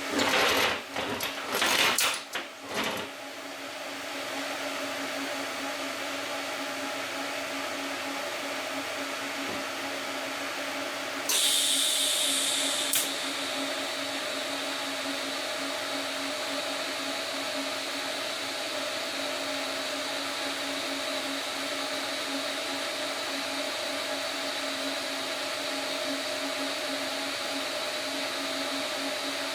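A shop machine's motor running steadily with a constant whine. In the first three seconds come several loud bursts of harsh noise, and about eleven seconds in a short high hiss.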